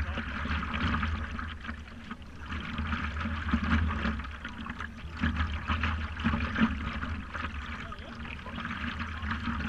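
Water lapping and sloshing against the nose of a moving stand-up paddleboard, swelling and easing every two to three seconds.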